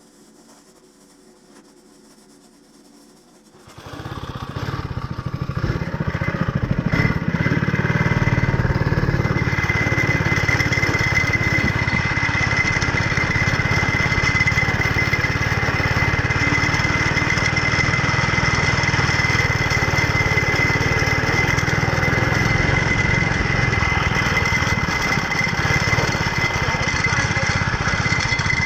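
Go-kart's small gasoline engine starting about four seconds in, then running steadily, with a steady high whine joining a few seconds later.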